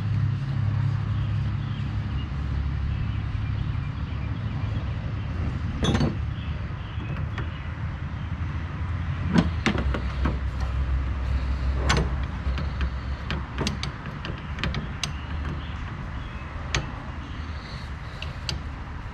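Scattered sharp metallic clicks and knocks of hand tools and fittings as A/C lines are refitted in an engine bay, over a steady low hum.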